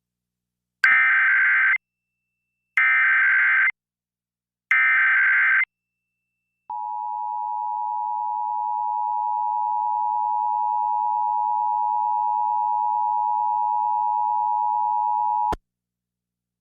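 Emergency Alert System tones for a Required Monthly Test: three one-second bursts of SAME header data tones, evenly spaced, then the two-tone EAS attention signal (853 and 960 Hz sounded together) held steady for about nine seconds and cut off abruptly.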